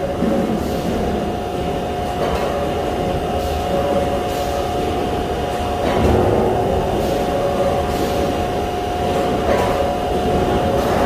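Steady machine hum of a metal fabrication shop around a large press brake, with irregular knocks and clanks of sheet metal about once a second or so.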